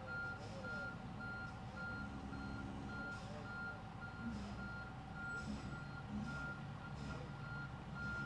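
A vehicle's reversing alarm beeping steadily, about two beeps a second, over a low steady rumble of engines.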